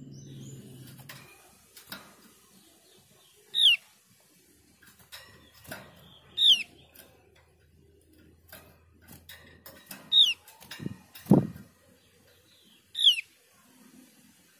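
Javan grey-throated white-eye giving four sharp calls that slide steeply down in pitch, about three seconds apart. Light taps and one dull thump fall between the calls.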